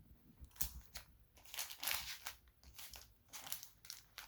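Foil trading-card pack wrappers crinkling as they are handled, in a series of irregular crackles.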